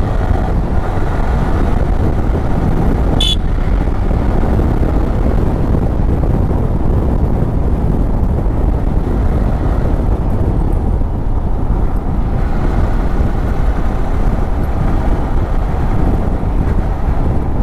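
Yamaha R15 V3's single-cylinder engine running steadily while riding at road speed, under a heavy rush of wind on the microphone. A short sharp sound cuts through about three seconds in.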